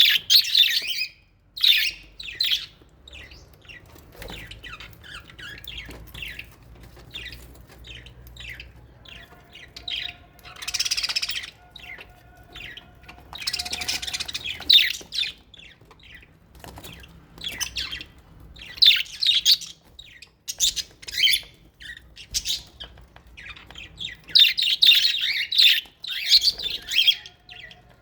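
Aviary flock of budgerigars and lovebirds calling continuously, a dense jumble of short, high chirps with busier clusters now and then.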